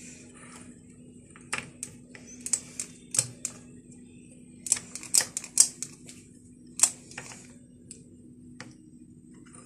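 Metal ice-cream scoop clicking and clinking against a glass dessert bowl as ice cream is scooped and pressed into it: a run of irregular sharp clicks, loudest around five to seven seconds in.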